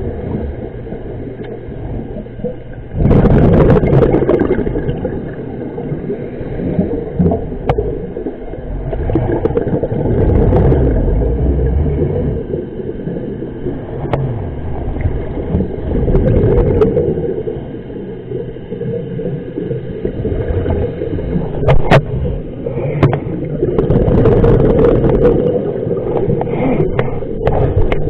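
Scuba diver breathing on a regulator, heard underwater: a gurgling rush of exhaled bubbles about every six to seven seconds, with quieter stretches between and a few sharp clicks.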